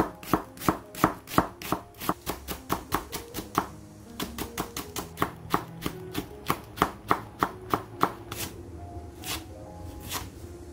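Chef's knife chopping through onion, then red chili, then blanched sweet potato stems, striking a wooden cutting board in a steady run of knocks about three a second. The strokes thin out near the end. Soft background music plays underneath.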